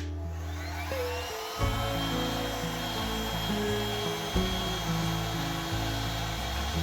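A handheld electric blower switches on with a click, its motor whine rising over about a second to a steady pitch with a rush of air, running on steadily. Background music plays underneath.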